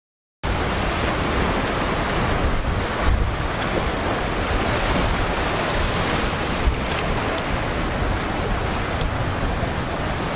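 Rough surf and breaking waves rushing steadily at an ocean inlet, with wind buffeting the microphone. The sound starts abruptly about half a second in.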